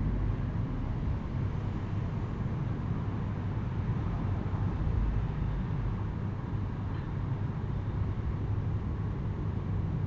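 Steady low rumble with a faint hiss over it, even throughout with no distinct events.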